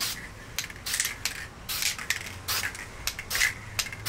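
Aerosol spray-paint can sprayed in about ten short, irregular bursts of hiss while laying a light coat of paint.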